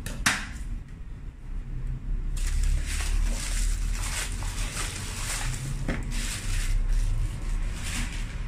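Scissors clacking down on a bench near the start, then a plastic courier mailer bag rustling and crinkling irregularly as it is handled and a cardboard box is pulled out of it, from about two and a half seconds in.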